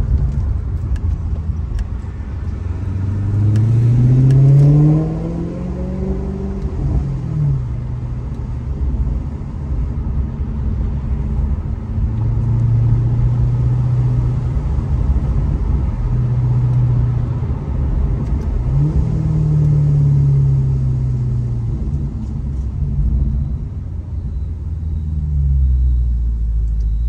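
Maserati GranTurismo's V8 engine and exhaust pulling through the revs: the note climbs for a few seconds early on and drops at a gear change, holds steady, then jumps up sharply about two-thirds of the way through and falls away, over a steady low road rumble.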